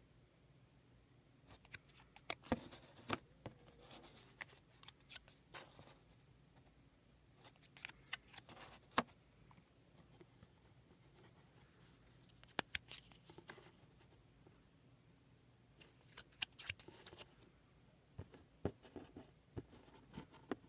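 Paper raffle tickets being handled by fingers, picked up, flipped over and set down on a tabletop: faint scattered light clicks and short paper rustles in several small clusters.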